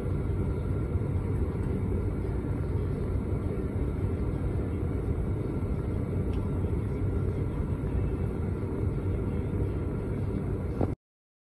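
Oil furnace running, its blower pushing hot air out of the duct in a steady low rumble. The sound cuts off abruptly near the end.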